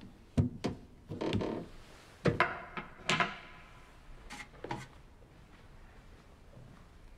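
A small glass-paned wooden door on an oak case being swung shut and latched: a string of sharp wooden knocks and clicks over about five seconds, one of them followed by a brief ringing.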